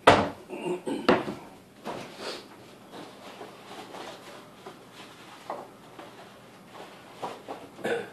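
Kitchen handling sounds: two sharp knocks at the start, then light clinks, knocks and rattles of containers and bottles as a refrigerator is searched for an egg.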